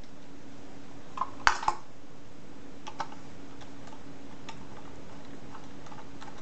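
Light clicks and taps of small screws being handled and set into a ceiling-fan blade and its blade holder, then a screwdriver starting to turn them. The loudest clicks come in a quick cluster about one and a half seconds in, with scattered fainter ticks after.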